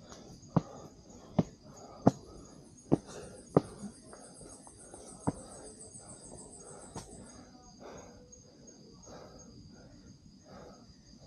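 Footsteps tapping on a mountain trail at walking pace, several sharp ones in the first four seconds and fewer after. Behind them a steady high chirring of night insects, with a higher, pulsing insect trill joining for about five seconds in the middle.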